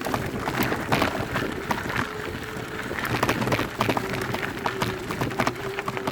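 Mountain bike running down a rough dirt trail: tyre noise on the ground with a constant scatter of irregular rattles and knocks from the bike over roots and stones.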